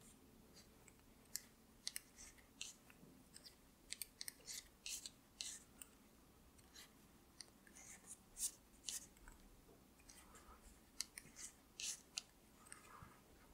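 Faint, irregular clicks and scrapes of 9 mm metal circular knitting needles as a row of knit stitches is worked in chunky yarn.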